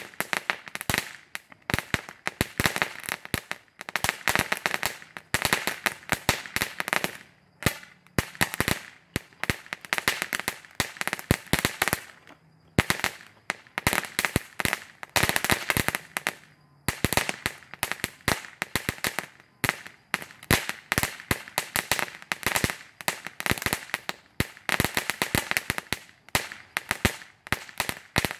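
Cracker Barrel ground firework going off: a rapid, irregular crackling of sharp little pops, coming in dense runs with brief lulls between them.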